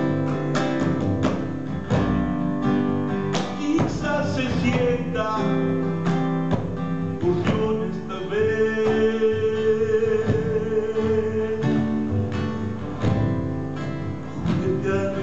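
Classical guitar played fingerstyle, plucked notes and chords in an instrumental passage. Past the middle a wordless sung line is held for several seconds, wavering slightly, and a rising vocal glide comes near the end.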